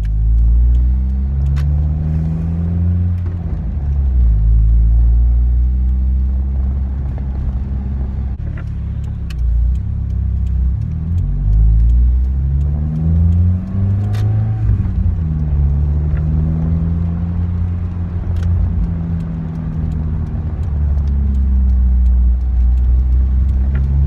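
Toyota Celica ST202 GT's 2.0-litre 3S-GE four-cylinder engine heard from inside the cabin while driving. The revs rise and fall several times as it pulls through the gears.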